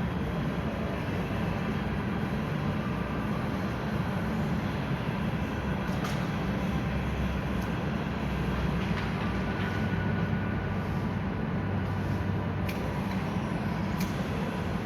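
Steady low mechanical rumble, with a few sharp clicks and ticks over it.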